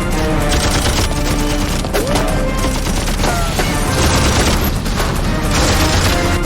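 Film action soundtrack of dense automatic gunfire, many shots overlapping in volleys, with a music score underneath.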